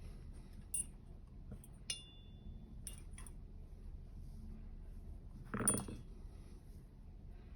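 Dimple lock picking: faint metallic clicks and scrapes of a pick and tension tool working the pins of a three-row dimple lock, one tick ringing briefly about two seconds in, and a louder knock a little after five seconds.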